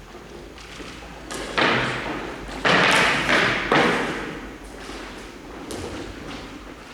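Three loud thuds about a second apart, each followed by a brief ringing fade.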